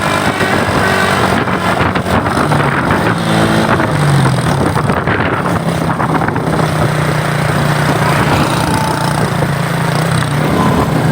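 Vehicle engine running close by over loud road noise, with a steady low engine hum that sets in about four seconds in.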